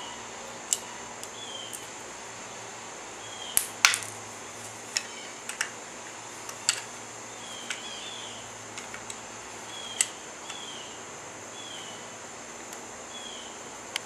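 Scattered sharp clicks and taps of small hardware being handled: hex nuts set into the keyed slots of a plastic mount base and parts knocking together. The loudest clicks come about four seconds in and again near ten seconds.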